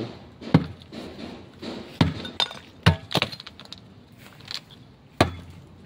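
Metal bar striking and chipping the concrete of a tomb niche to widen its opening. The blows come as several sharp, separate knocks at irregular intervals, with the clink of broken pieces.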